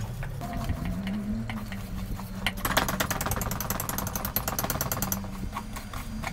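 Wire whisk beating a thick flour-and-egg frying batter in a stainless steel bowl: scattered clinks and scrapes of the wires on the metal, then a fast run of rapid, even strokes for about two and a half seconds in the middle.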